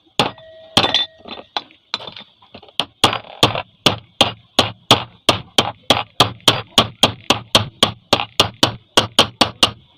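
Small hammer tapping a new ball bearing into place on a ceiling fan: a few scattered metal-on-metal strikes, then from about three seconds in a quick, even run of about three strikes a second as it is tapped around the edge so the bearing seats evenly.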